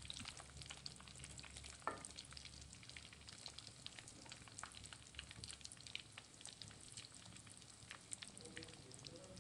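Egg-and-biscuit-crumb-coated fish pieces frying in hot oil in a kadai, a faint sizzle with scattered crackles, as they are turned with a steel slotted spoon; a light knock about two seconds in.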